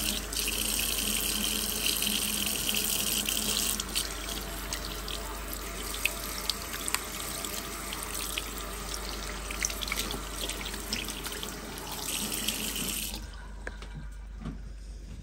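Tap water running into a bathroom sink and splashing over a kitten being rinsed. The flow stops suddenly about two seconds before the end, leaving faint drips from the wet kitten into the basin.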